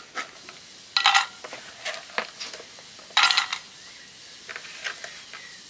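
Metal pots and utensils clattering: two louder clanks, about a second in and about three seconds in, each with a short metallic ring, and lighter taps in between.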